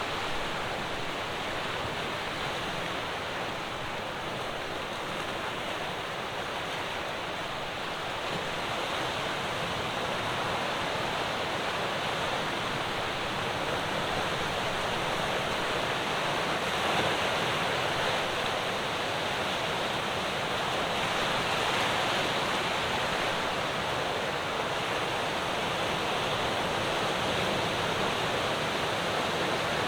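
Ocean waves breaking on a rocky shore: a continuous wash of surf that swells a little in the middle and then eases, with light wind on the microphone.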